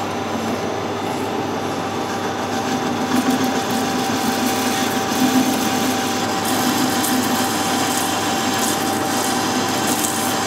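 Metal lathe running with a steady whine over a hiss of machining noise. The sound turns brighter and scratchier about six and a half seconds in.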